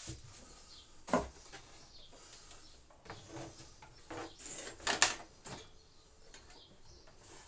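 Wooden pull-out shelf carrying a bench drill press being moved by hand on its runners. There is a sharp knock about a second in, then a run of scrapes and knocks, the loudest about five seconds in.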